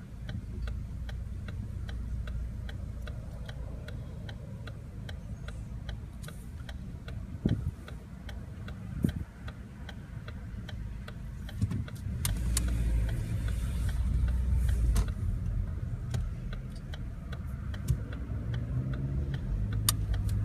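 A car's turn-signal indicator clicking at an even pace inside the cabin while the engine idles. About twelve seconds in, the engine noise grows as the car pulls away, and there are two short knocks a little before that.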